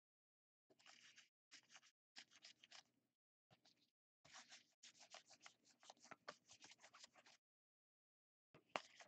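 Faint rustle and flick of football trading cards being shuffled through by hand, card sliding over card in quick scratchy runs with short pauses; the longest run comes from about four to seven seconds in.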